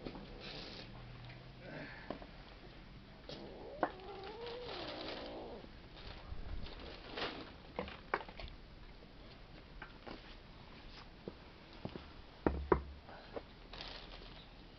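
A domestic cat gives one long meow with a wavering pitch about four seconds in. A few sharp knocks close by near the end are the loudest sounds.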